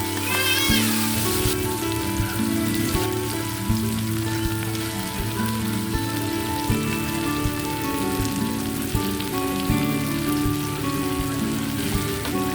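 Food frying in hot oil in a pan, a steady sizzle with many small crackles and pops, under background music with held notes.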